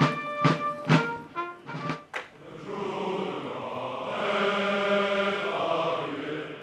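Military band music: a quick run of drum strokes with short brass notes, then from about two and a half seconds in a long held chord that fades near the end.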